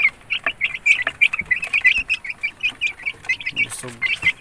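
A flock of young game fowl chicks peeping constantly, many short high cheeps a second overlapping one another.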